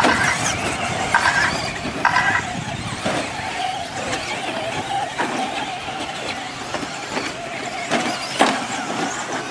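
Traxxas Slash RC short-course trucks racing on a dirt track: a high-pitched whine and squeal from their motors and drivetrains over tyre noise, with a few sharp knocks as trucks land or hit the track edges.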